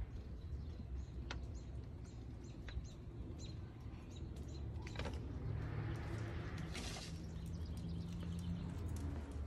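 Small birds chirping in the background, with a few sharp clicks. About halfway in, a low steady hum with some hiss joins for a few seconds.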